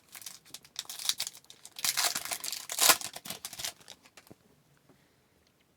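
A hockey card pack wrapper being torn open and crinkled, with the cards handled. The rustle is loudest about two to almost four seconds in, then dies away.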